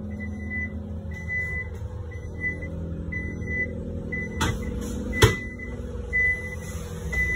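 Electronic warning beeper on a Tata electric bus, sounding a steady high beep about once a second, each beep about half a second long, over a steady low hum. Two sharp knocks come about four and a half and five seconds in.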